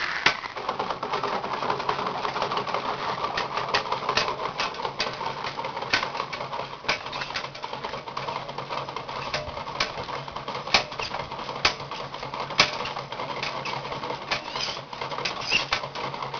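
Bicycle-driven water pump running as the pedals are turned: a steady mechanical whir and hum with irregular clicks and clacks from the drive and pump. It starts abruptly at the beginning.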